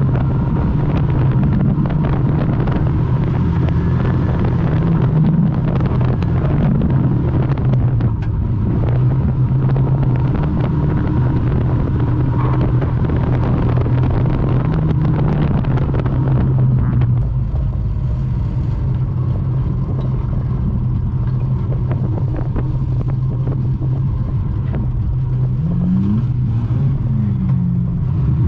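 Morris 1100 banger racing car heard from inside the cabin: its A-series four-cylinder engine runs steadily under load, with constant rattles and knocks from the car over the track. About two-thirds of the way through, the engine note drops and runs quieter. Near the end there are a couple of brief revs.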